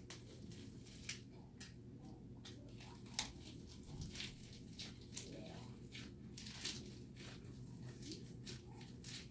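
Faint crunching and wet chewing of a mouthful of fresh lettuce and perilla-leaf wrap, a scatter of small crisp clicks and crunches.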